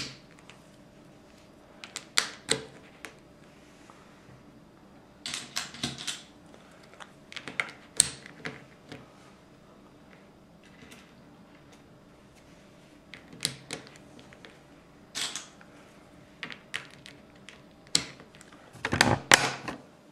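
Plastic LEGO pieces clicking and tapping irregularly as tiles are pressed onto a baseplate, in scattered single clicks and short clattering runs, the loudest run near the end.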